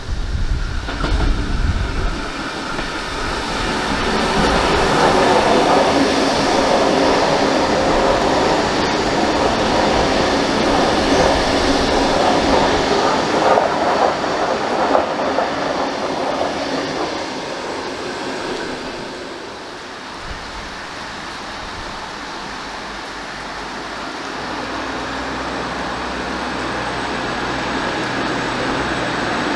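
Double-deck electric passenger train running through the station at speed, its wheels clattering over the rail joints, then fading away. From about two-thirds of the way in, a steady low hum grows slowly louder as another train approaches.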